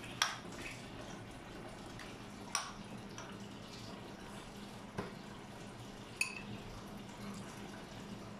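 Four sharp clinks of metal spoons against dishes, a couple of seconds apart, the last one ringing briefly, over a low steady hum.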